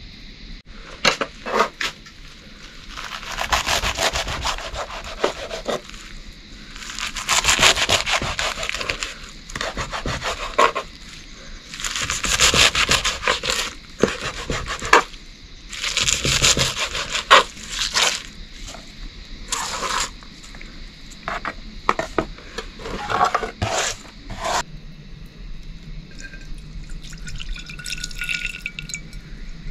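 Scraping and rubbing in irregular bursts of one to three seconds, with sharp clicks and knocks between them, dying down near the end.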